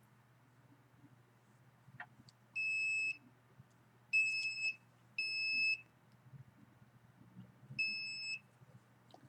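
An electronic detector beeping four times in short, evenly pitched half-second tones, the middle two close together and the last after a longer gap, over a faint steady low hum.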